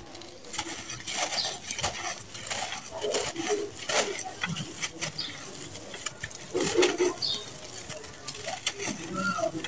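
Dry, gritty red sand-cement chunks being crushed and crumbled by hand, a dense run of crunchy crackles and grainy rustling as the pieces break up and loose grit pours down.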